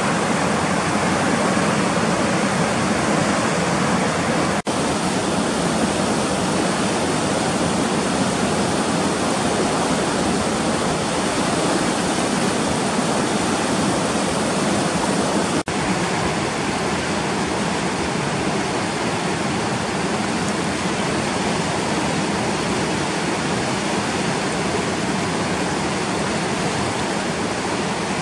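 Fast mountain river running over rapids and rocks: a steady, full rush of water, broken by two momentary dropouts.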